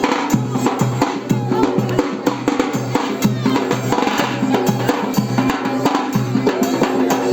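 Music with a steady, driving drum beat under a pitched melody line.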